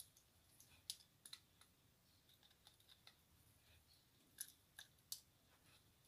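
A few faint, sharp metal clicks from a screwdriver turning a brass terminal screw on a wiring device, with a wire wrapped under the screw head, over near silence. The clicks come in two small groups, around one second in and again between four and five seconds in.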